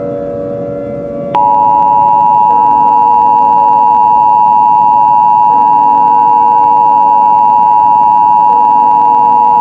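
Emergency Alert System two-tone attention signal (853 Hz and 960 Hz sounded together). It starts abruptly about a second in and holds steady and loud, over a low droning background.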